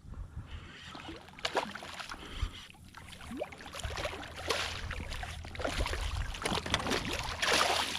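Water sloshing around a fishing kayak, with scattered small clicks and knocks from gear being handled and a louder wash of water near the end.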